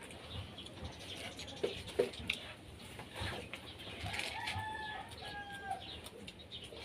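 Eating sounds: chewing, lip-smacking and small clicks from people eating with their hands. A bird calls in the background about four seconds in, one held note lasting about a second and a half.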